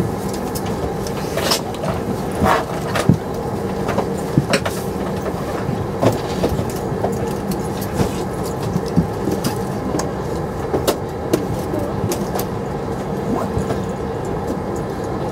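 Steady hum of a Boeing 747-400 cabin at the gate, with a constant low tone and scattered light clicks and knocks throughout.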